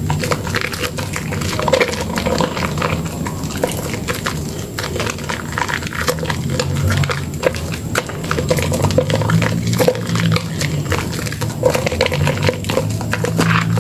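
A soaked bar of soap squeezed and kneaded in thick lather by bare hands: a dense run of irregular wet squelches, with the foam and bubbles crackling and popping.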